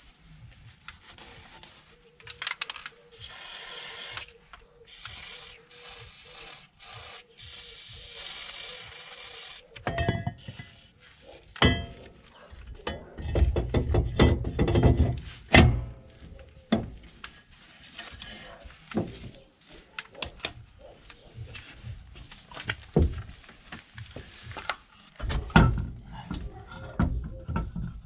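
Cloth rubbing over a van's rear wheel hub, then metal clinks, scrapes and knocks as the rear brake drum is worked onto the hub over the drum brake shoes. The clinks and knocks begin about a third of the way in, and louder thuds come near the end.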